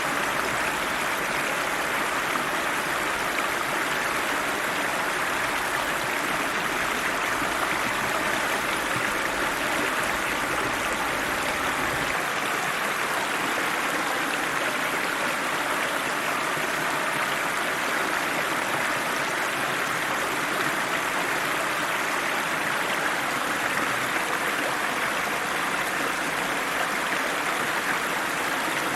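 River water flowing steadily, an even, unbroken rush of current.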